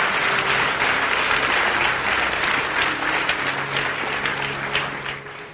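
A congregation applauding, loud at first and dying down near the end.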